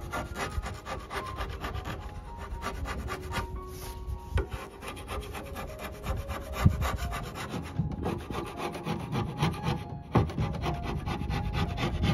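Metal blade of a Purdy 6-in-1 painter's tool scraping the old finish off the wooden edge of an oak buffet top, in many quick, irregular scratchy strokes.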